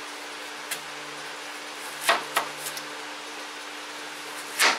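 Knife chopping an onion on a cutting board: a few separate sharp chops, two close together midway and the loudest near the end, over a steady low hum.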